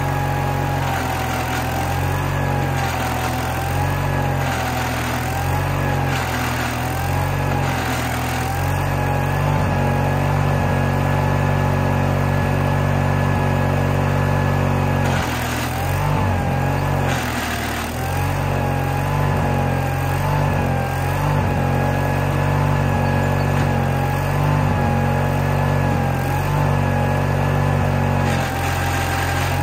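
Case 1816C skid steer's engine running steadily while the machine tries to drive, with a wavering whine above it. It doesn't sound too good, which the owner puts down to a really loose pump.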